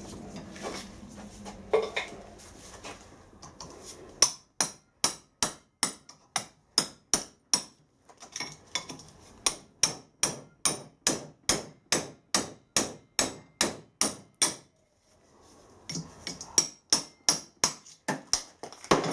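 Hammer blows on a drift held in a tractor half-shaft bearing housing, knocking out the old leather oil seal: a steady run of sharp metallic strikes about three a second, a short pause, then a second run of strikes. Before the hammering there is light clinking as metal parts are handled.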